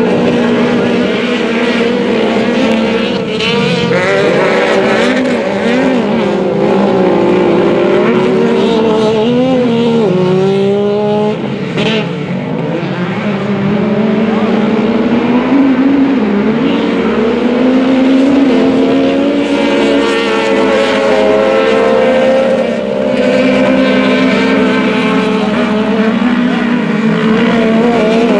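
Several side-by-side UTVs racing on a dirt short course, their engines running hard together, the pitch rising and falling as they lift off and accelerate again through the turns.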